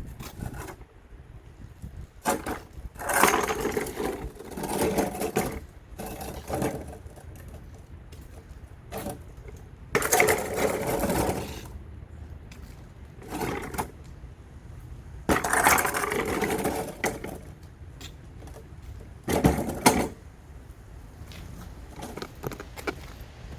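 Snow pusher shovel parts being handled and fitted together: irregular bursts of scraping and rattling, with a couple of sharp knocks about twenty seconds in.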